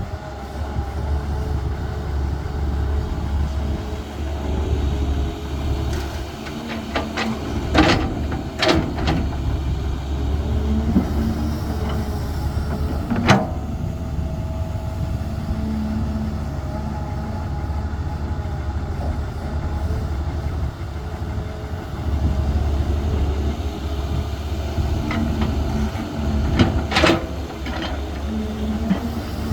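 Caterpillar 320 excavator's diesel engine running steadily under hydraulic load, with a hum that rises and falls as it works. Sharp knocks come in a few clusters: several about eight seconds in, one near the middle, and more near the end.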